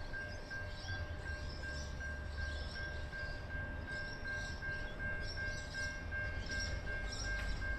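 Three-car diesel train approaching the station, its engines a steady low rumble. Over it runs an evenly pulsing high ringing tone.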